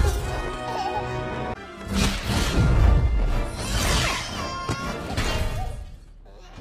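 Film soundtrack of a fight: orchestral score under crashing impacts and whooshing weapon swings, with loud hits about two, three and four seconds in. The sound dies down near the end.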